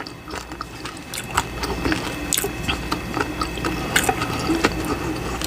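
Chewing a bite of crunchy corn taco shell with saucy pasta filling: scattered sharp crackles over wet, squishy mouth sounds.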